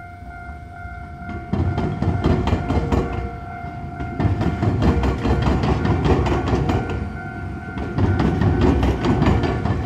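Iyotetsu 3000-series electric train, ex-Keio Inokashira Line cars, crossing the tram line's diamond crossing. From about a second and a half in, its wheels clatter and knock in rapid runs over the crossing's rail gaps over a loud rumble, with the noise surging as each bogie passes. A steady ringing warning tone from the level crossing sounds underneath.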